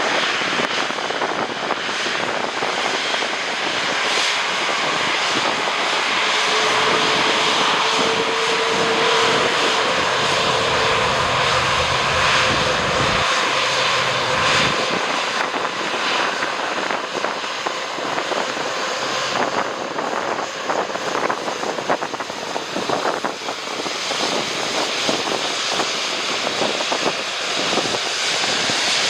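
A jet airliner's engines running loud and steady as it comes in to land. A faint whine is held for a few seconds about a quarter of the way in.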